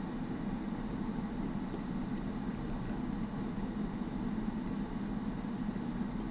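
Steady road and engine noise of a moving car, heard from inside its cabin: an even low rumble with no sudden events.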